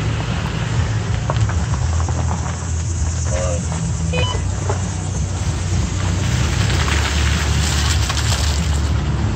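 Toyota Tacoma pickup driving along a gravel dirt trail: a steady low rumble of engine and road noise, with the tyres crunching and crackling over gravel and small rocks.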